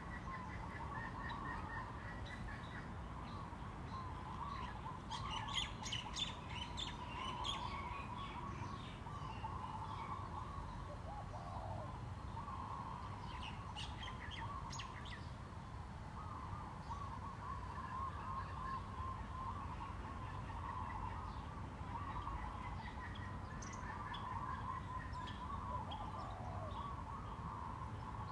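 Birds chirping and chattering continuously over a low steady hum. Harsher scratchy bursts come about five seconds in and again about fourteen seconds in.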